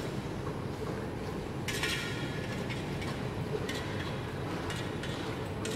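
Steady low rumble of a large hard-walled hall, with a few light clicks about once a second and a brighter metallic clink about two seconds in, from fencers sparring with steel swords and bucklers.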